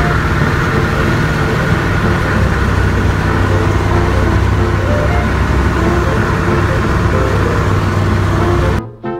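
Four Wright Cyclone radial engines of a B-17 Flying Fortress droning steadily in cruise flight, with wind rushing past the open waist gun window. The sound breaks off briefly near the end, then resumes.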